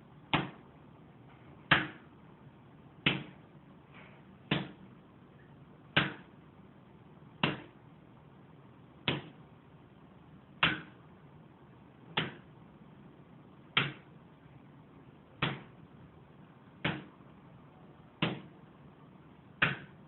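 A fist punching a dead chicken, a sharp smacking hit about every second and a half, fourteen in all. A steady static hiss runs between the hits.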